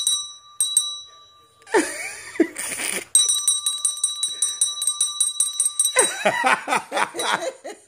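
A small bell ringing: two short dings at the start, then a long, rapid trilling ring lasting about three seconds. Short pitched, voice-like cries come between the rings and again near the end.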